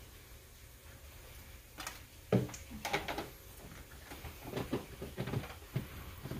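Handling noises: an irregular string of knocks, clicks and rattles, starting about two seconds in, as a power cord is plugged into the back of a label printer.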